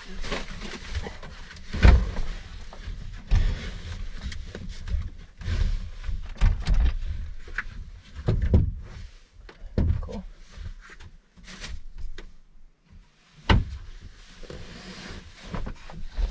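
A camper van's pull-out bed being extended and set up: irregular knocks, thumps and sliding scrapes, with the heaviest thumps about two seconds in and again near the end.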